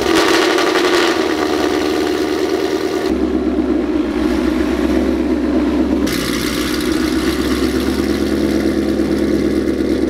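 Whipple-supercharged 2016 Ford Mustang GT's 5.0 V8 idling steadily through its exhaust, running after a dead fuel pump was replaced with a new return-style fuel system. The sound shifts abruptly twice, about three and six seconds in.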